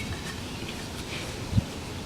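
Outdoor background noise with a low rumble on the microphone and a brief low thump about one and a half seconds in.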